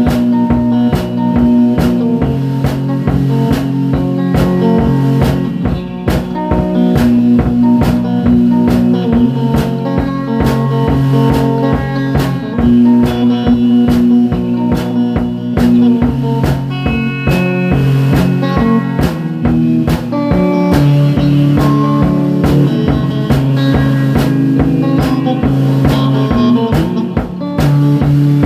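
Background blues-rock music with electric guitar and a drum kit keeping a steady beat.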